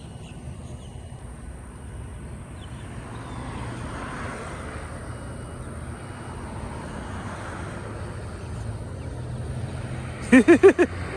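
Road traffic in the background: a steady low rumble with vehicles going by, swelling about four seconds in and again at the very end. Near the end, a person's voice gives four quick loud syllables.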